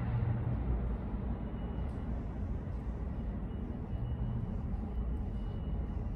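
Steady low rumble and hum of an underground subway platform, with a faint thin whine running through the middle.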